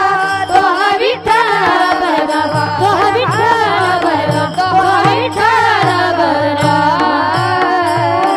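A woman singing a Marathi devotional kirtan song in an ornamented style, her voice gliding between notes. A deep hand drum joins in after a couple of seconds, with short strokes about twice a second.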